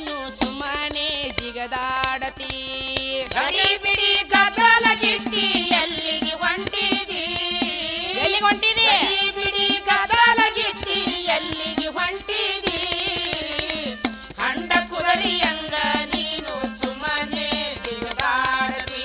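Kannada bhajan folk music: a gliding melody line over a steady beat of drum strokes.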